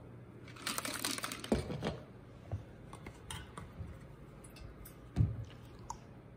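Scattered light clicks and knocks, with a quick flurry of them about a second in and a louder thump about five seconds in.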